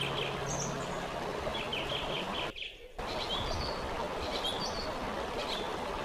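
Steady rush of falling water from a waterfall with small birds chirping repeatedly over it; the sound drops out for about half a second midway.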